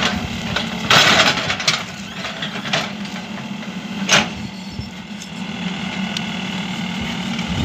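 Mahindra EarthMaster VX backhoe loader's diesel engine running steadily as the backhoe arm digs. A few short noisy bursts sit over it, the loudest about a second in and another about four seconds in.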